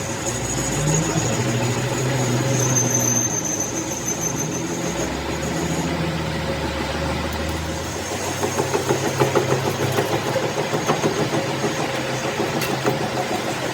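An engine running steadily; about eight seconds in, a fast, even pulsing joins it.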